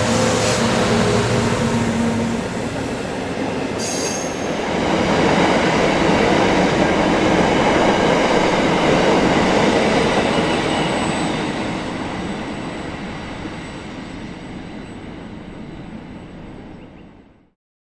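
Iron ore wagons of a long freight train rolling past on the rails: a steady rumble and clatter of wheels, with a brief high wheel squeal about four seconds in. The noise swells and then fades away as the last wagon passes, cutting off just before the end.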